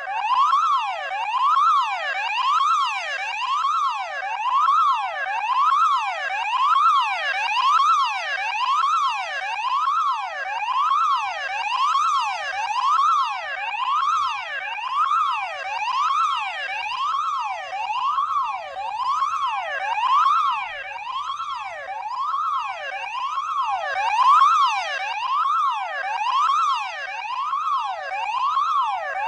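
Electronic emergency alarm wailing, its piercing tone sweeping up and down in pitch about once a second in an unbroken, even cycle.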